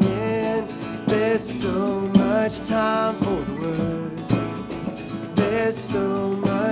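Acoustic guitars strumming with a cajon keeping the beat, playing a country-rock song, over a lead melody of held notes that bend in pitch.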